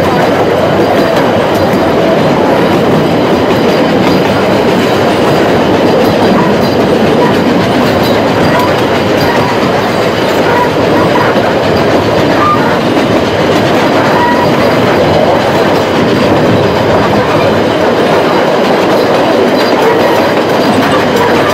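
A narrow-gauge steam train running, heard from aboard an open-sided carriage: a loud, steady rumble and clatter of the carriage wheels on the rails.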